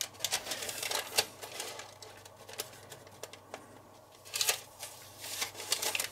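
Baking paper rustling and crinkling, with scattered light scratches and taps, as a knife and a dough scraper work a loaf of dough in a paper-lined cast-iron Dutch oven. The noises come in short irregular clusters, busiest in the first second and again about four and a half seconds in.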